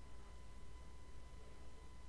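Low steady hum with a faint, thin steady whine above it; no distinct sound event.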